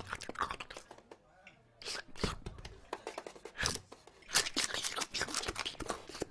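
Cartoon sound effects: quick crackling, crunching and clicking noises in several bursts, with short pauses between them.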